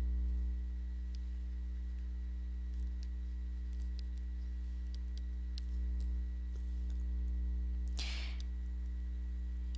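Faint scattered clicks of a stylus tapping on a tablet screen while words are handwritten, over a steady low electrical hum. A short rush of noise comes about eight seconds in.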